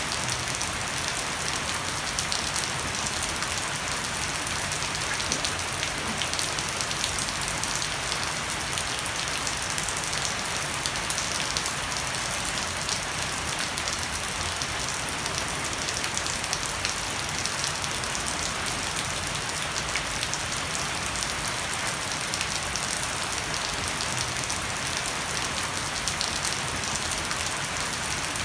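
Heavy rain falling on a wooden deck and broad-leaved shrubs, with water streaming off the edge of a thatched roof: a steady, even hiss with fine pattering of drops.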